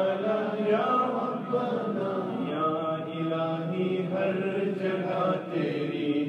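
Unaccompanied male voices chanting a naat's devotional refrain in long, held notes that glide slowly up and down, layered like a small choir.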